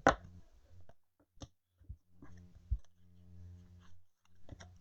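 Scattered sharp clicks and light handling taps, the loudest a single click at the very start, with a faint steady hum in the middle.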